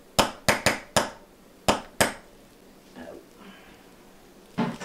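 A metal potato masher knocked six times against the rim of a stainless steel saucepan in about two seconds, sharp metallic clinks knocking clinging mashed potato off it. A short knock follows near the end.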